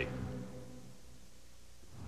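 The last notes of a television network's music sting dying away, fading into faint VHS tape hiss and low hum.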